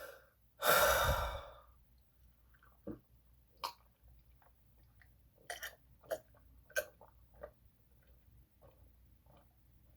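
A person takes a loud breath, then chugs milk, with a run of quiet, irregular gulps and swallows.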